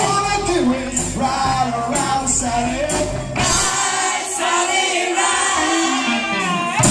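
Live rock band playing, with a man singing lead and women singing backing harmonies over electric guitar, bass and drums. A little past halfway the bass drops out and the voices carry on their own for about three seconds, then the full band comes back in with a loud hit near the end.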